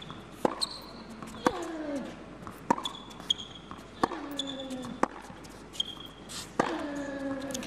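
A tennis rally on an indoor hard court. Racket strings hit the ball with sharp pops about once a second, sneakers squeak on the court surface, and the players give short grunts that fall in pitch with some of their shots.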